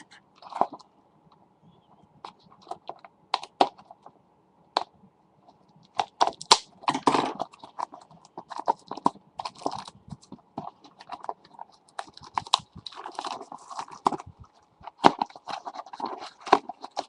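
Trading-card pack being handled and opened by hand: irregular crinkles, rustles and sharp clicks of the wrapper, sparse at first and busier from about six seconds in.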